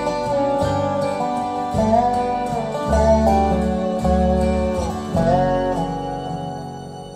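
Country-bluegrass song with acoustic guitar and a female voice singing, played over YG Acoustics Carmel 2 hi-fi loudspeakers and picked up by microphones in the room. The music fades a little near the end.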